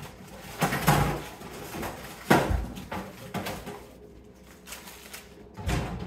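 Plastic bags of frozen vegetables rustling and knocking as they are packed into a freezer compartment: a few separate knocks, the loudest a little over two seconds in.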